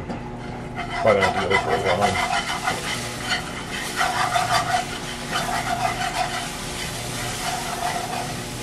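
Wire whisk scraping and rattling quickly against a cast iron skillet while milk is poured into hot gravy base, the milk sizzling as it hits the pan. The whisking gets loud about a second in and stays busy.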